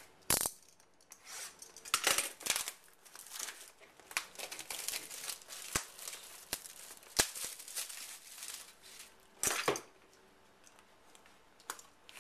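Plastic wrapping being torn and crinkled off a box of trading cards, in a run of irregular crackles and rips that dies away about ten seconds in.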